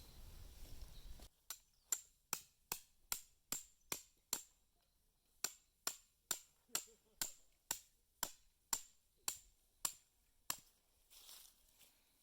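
A tool striking something hard over and over, about two and a half sharp blows a second, each with a brief high ring. There are two runs of blows with a pause of about a second between them.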